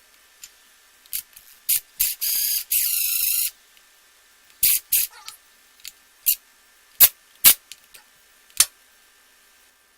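Two short spray-like hisses about two seconds in, then a scattering of sharp clicks and taps from metal tools handled on the wire door hanger's studs while they are being threaded.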